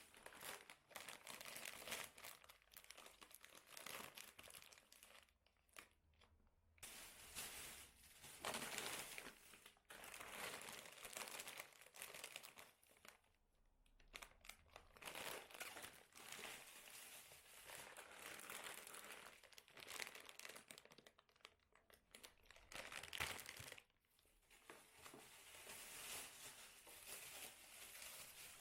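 Crinkling and rustling of something being handled by hand, in irregular stretches of a few seconds with short pauses between them.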